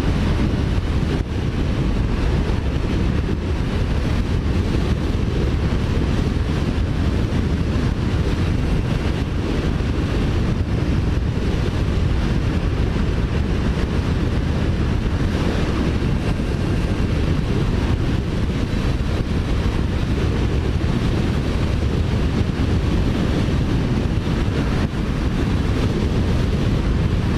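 Steady wind noise on the microphone of a moving motorcycle, a Kawasaki Ninja 400, with the bike's engine under it. The deep, even rush does not change through the stretch.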